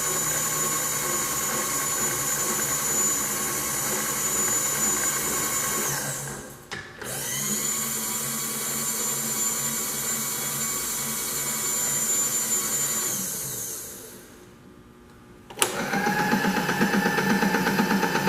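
Bridgeport Series I vertical milling machine running with a steady motor whine. About six seconds in it is switched off and winds down, then starts again a second later, spinning back up to speed. It winds down again near thirteen seconds, and after a short lull a machine motor starts abruptly with a click and runs with a lower, rougher, pulsing sound.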